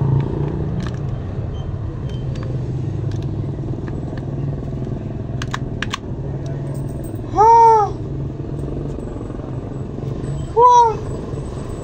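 Steady low engine rumble of a running motor vehicle, with scattered light clicks. Two short, loud pitched calls, each rising and then falling in pitch, come about seven and a half and ten and a half seconds in.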